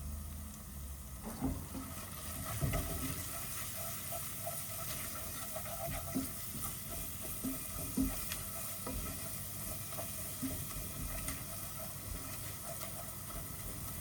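Food sizzling in a frying pan, with a utensil knocking and scraping against the pan at irregular moments.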